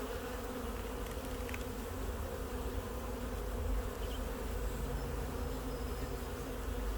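Steady buzzing hum of a honey bee colony from an open hive, with many bees in the air and on the frames.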